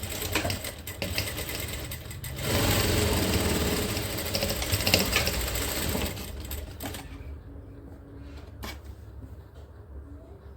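Sewing machine stitching a straight practice seam: it runs at speed for about three and a half seconds, then slows and stops. A low steady hum sits underneath, and there is a single click near the end.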